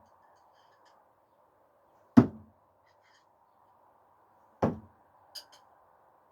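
Two thrown screwdrivers striking the target, each a sharp thud with a short low ring, about two and a half seconds apart, followed by a couple of light clicks.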